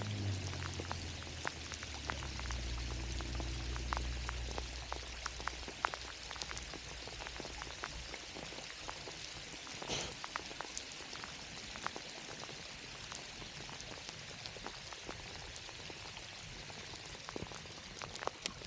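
Steady rain falling, with many separate drop hits. A low hum sits under it for the first few seconds and fades out.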